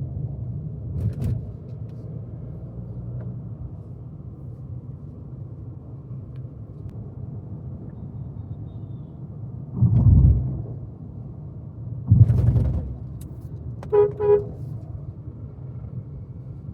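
Volkswagen Virtus GT's 1.5 TSI four-cylinder engine and road noise making a steady low drone on the move, with two louder low surges about ten and twelve seconds in. A car horn gives two short toots about fourteen seconds in.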